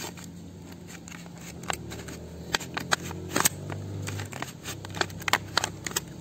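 Clear plastic blade case being worked off a wood chisel: a run of irregular plastic clicks, snaps and crackles as the steel blade slides out.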